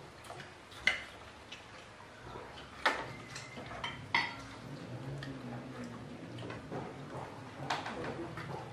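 Sharp clinks and taps of plates, serving dishes and glasses knocked on a dining table during a meal, four louder ones spread a second or more apart, over a faint low murmur.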